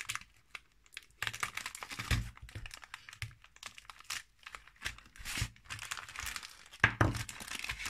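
Black plastic booster wrapping crinkling in irregular bursts as it is handled and slit open with a hobby knife, with the cardboard tray rustling.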